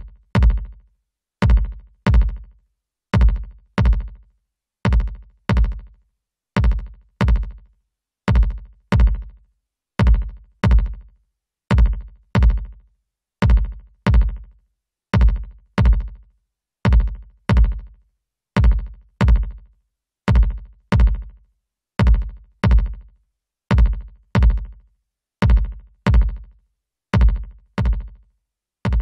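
A looping drum-machine beat of deep kick-drum hits, each with a short decaying tail, repeating a little over once a second. It plays through a software compressor plugin whose threshold, attack, release, ratio and gain settings are being changed.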